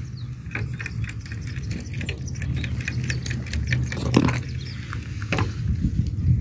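Hand-held trigger spray bottle squirting water onto a large rock in a rapid series of short hissy sprays, with a louder burst about four seconds in and another near the end, over a steady low rumble.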